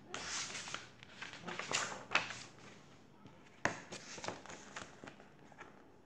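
Pages of a paperback picture book being turned and handled: several short paper rustles, with a sharp tap about three and a half seconds in.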